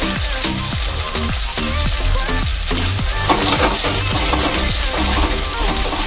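Sliced onions sizzling as they fry in hot mustard oil in a kadai, with a metal spatula stirring and scraping through them, over background music with a steady beat.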